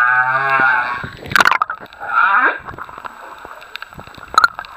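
Humpback whale song heard underwater: a long low note with many overtones, a brief harsh note about a second and a half in, then a shorter call sweeping downward in pitch around two seconds in. A couple of sharp clicks come near the end.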